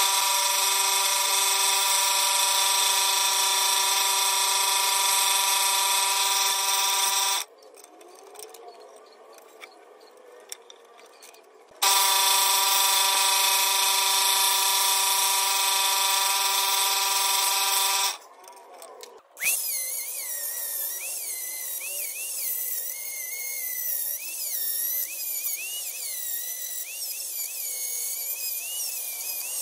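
Scroll saw running steadily for about seven seconds, stopping, then running again for about six seconds while cutting out the interior openings of a plywood owl. Later a handheld rotary tool with a felt buffing wheel runs with a high whine that wavers in pitch as it is pressed against the wood.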